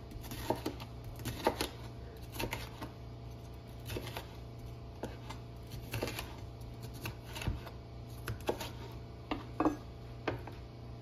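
Chef's knife slicing a green bell pepper on a plastic cutting board: light, irregular taps of the blade against the board, about one a second.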